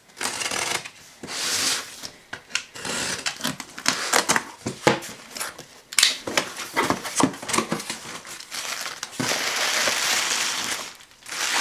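Bubble wrap and packing being pulled out of a cardboard shipping box, with irregular crinkling, rustling and sharp clicks. A longer, steady rustle runs for about two seconds near the end.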